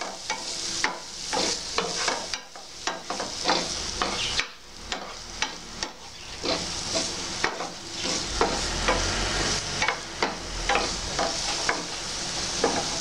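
Diced carrot, green beans, onion and red chilli sizzling in hot oil in a frying pan while a wooden spatula stirs them, with many short scrapes and taps against the pan over a steady hiss. The vegetables are being sautéed until just softened.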